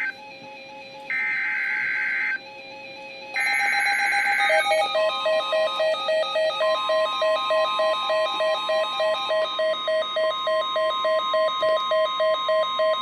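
Emergency Alert System header tones: the end of one burst of warbling digital data and two more, each about a second long with a second's gap between them. A rapidly pulsing alert tone follows, and a steady higher alarm tone joins it a couple of seconds later and holds.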